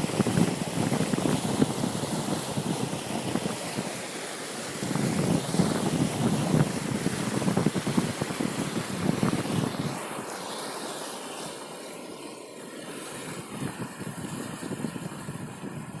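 Wind buffeting the microphone, mixed with water splashing from stand-up paddleboard paddle strokes, coming in surges every couple of seconds. It eases to a quieter hiss after about ten seconds.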